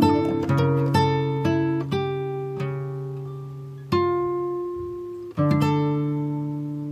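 Background music of plucked strings, notes ringing and fading away, with fresh chords struck about four seconds in and again near the end.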